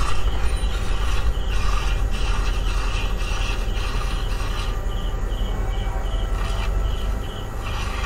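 Video game sound effects from a mobile battle game: a dense mix of combat hits and ability sounds over a steady low rumble, with a quick repeating high ticking in the second half.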